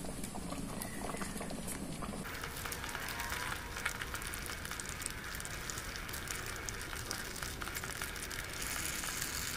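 Thick sugary mango chutney bubbling on a low flame while a wooden spatula stirs it, a steady crackle of popping bubbles. The crackle becomes abruptly fuller and brighter about two seconds in.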